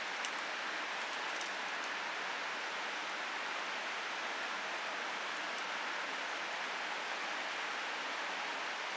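Steady, even rushing background noise with no change in level, with a few faint high ticks in the first two seconds.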